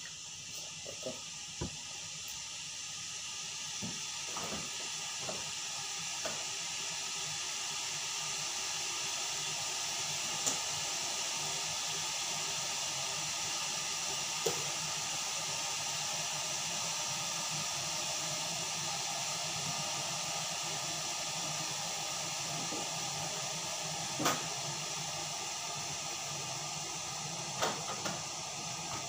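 Electric kettle heating water: a steady hiss that grows louder over the first several seconds and then holds. A few light clicks and knocks of things being handled on the counter sound over it.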